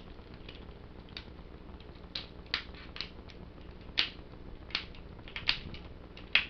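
About ten sharp, irregularly spaced plastic clicks as the wing joints of a Geki Bat toy made of ABS and PVC are bent back and forth, over a steady low hum.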